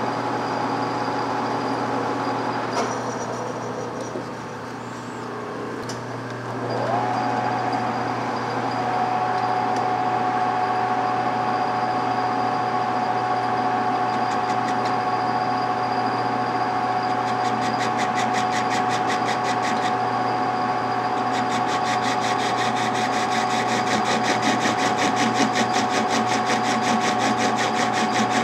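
Metal lathe running with a steady whine. The running tone drops out about three seconds in and comes back with a short rising whine near seven seconds, then holds steady; from about halfway a fast, even ticking joins it.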